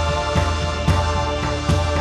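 Background music with sustained chords and a steady drum beat, about two beats a second.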